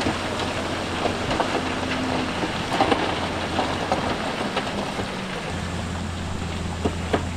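Heavy earthmoving machinery running with a steady low engine hum, with scattered knocks and clatter of stones throughout.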